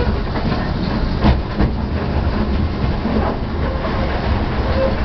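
Narrow-gauge train on the move: the steady low engine rumble of Simplex petrol locomotives running close alongside, with the clack of wheels over rail joints and a couple of sharper knocks about a second and a half in.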